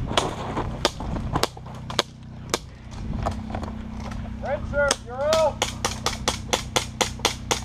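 Airsoft pistols firing: scattered single sharp cracks, then a fast, even string of shots, about seven a second, over the last two seconds. A voice calls out briefly just before the fast string.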